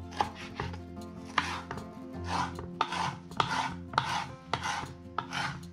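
Kitchen knife slicing roasted bell peppers into strips on a wooden cutting board: sharp taps of the blade on the board, each with a short scraping swish, about two cuts a second.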